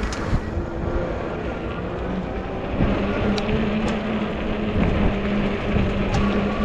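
Wind rush on the microphone and fat tyres rolling on pavement while riding an Ecotric folding fat-tire e-bike. A steady hum comes in about three seconds in, with a few faint ticks.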